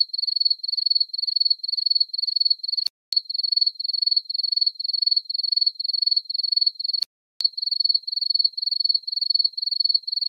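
Cricket chirping sound effect, a high, even chirp repeating about three times a second. It cuts out briefly twice with a click: the comic cue for an awkward silence.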